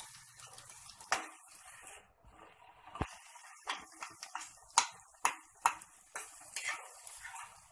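Metal spatula stirring chopped onion and tomato in oil in a metal kadhai, its edge scraping and tapping against the pan in irregular clicks, over a faint sizzle of the frying.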